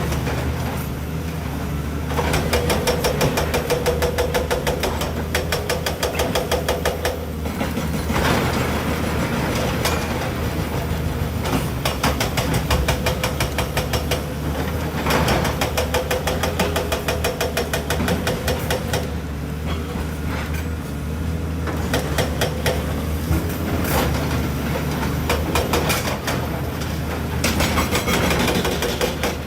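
Heavy excavator's diesel engine running steadily under load, with runs of rapid metallic clanking and knocking from the machine working.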